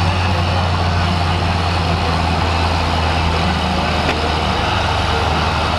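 Large farm tractors' diesel engines running steadily at low speed, a constant low drone.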